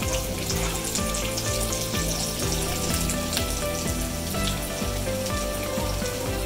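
Mustard seeds and urad dal sizzling in hot coconut oil in a small nonstick pan, a steady hiss with scattered small crackles as the mustard begins to splutter. Background music plays quietly underneath.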